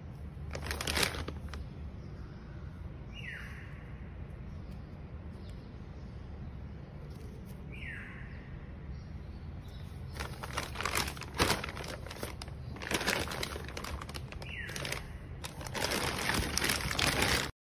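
Clear plastic shoe bags crinkling as the packaged sandals are handled, in several bouts, loudest in the last couple of seconds before it cuts off suddenly. A bird gives three short falling chirps in the background, over a low steady hum.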